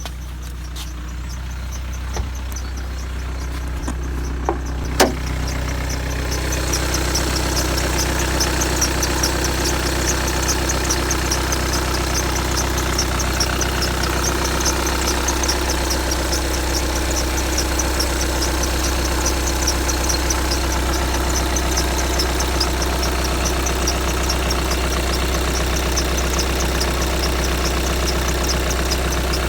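2015 VW Tiguan 2.0 TDI four-cylinder diesel idling, with a sharp click about five seconds in. From about six seconds in comes a rapid, evenly repeating high-pitched squeak over the engine hum, which the owner says happens only on a cold engine and dies away after a minute or two.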